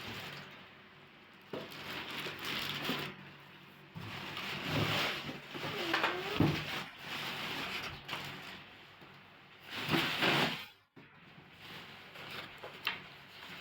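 Rustling and handling of unboxing packaging, in irregular noisy bursts of a second or two.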